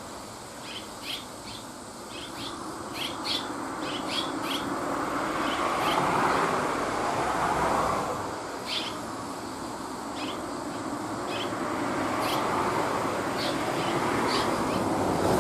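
Red-rumped swallows calling in short, scattered chirps, over a rushing background of passing vehicles that swells twice.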